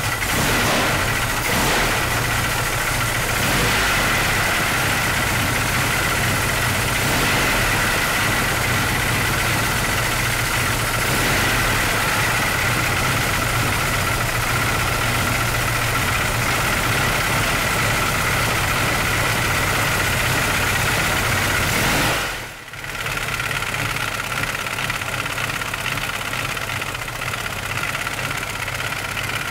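Freshly rebuilt 10-litre Hall-Scott aero engine running steadily on its first run, with its open valve gear exposed. The sound dips briefly about three-quarters of the way through and comes back.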